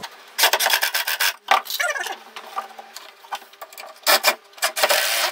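Cordless drill-driver working into solid pine in several short bursts, with wood rubbing and scraping between them.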